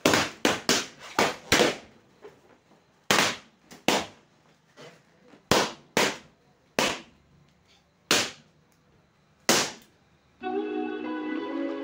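Party balloons popping one after another: about eight sharp pops in quick succession in the first two seconds, then single pops roughly a second apart. Music starts near the end.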